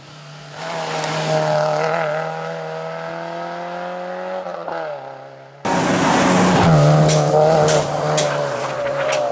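Peugeot 106 Rallye Group N rally car's 1.6-litre four-cylinder engine running hard at high revs, its pitch climbing slowly, then dropping about four and a half seconds in. The sound then jumps abruptly to a closer, louder pass of the car, with a run of sharp cracks over the engine.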